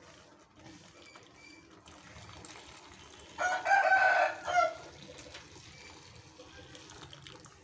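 Milk being poured into a pan of simmering vermicelli payasam, a faint steady pour. About three and a half seconds in, a loud pitched animal call lasting just over a second rises above it.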